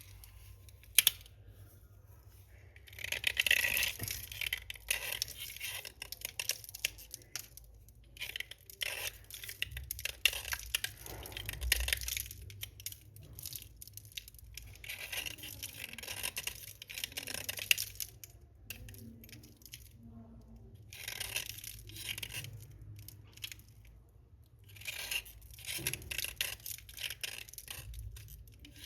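Slate pencils crunching and crackling in clusters of crisp bursts, each a few seconds long, with short pauses between them.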